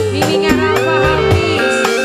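Live dangdut tarling band music: a bamboo suling flute plays a bending melody over bass and steadily struck drums.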